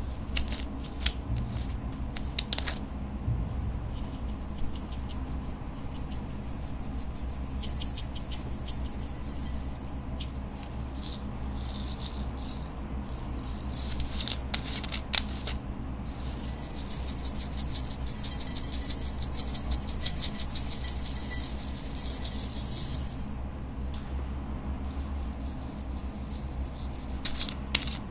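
Plastic glitter sequins rattling as they are shaken and poured from small glass bottles into a glass bowl. The rattle is densest about two-thirds of the way in, and a few sharp clicks come from the bottles' metal screw caps.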